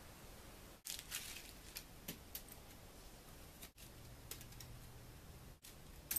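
Faint rustling and crackling with scattered light clicks, like paper or fabric being handled, broken off abruptly several times.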